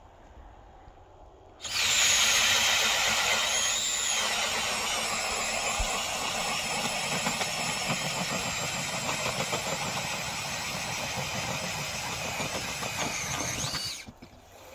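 Cordless drill spinning an ice auger, boring a fishing hole through lake ice: a steady motor whine with the grinding rasp of the blades cutting ice. It starts suddenly about two seconds in, runs evenly, rises briefly in pitch near the end, then stops.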